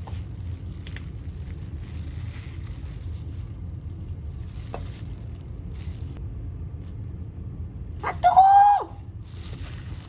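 A dog gives one loud, drawn-out bark about eight seconds in, over a steady low hum.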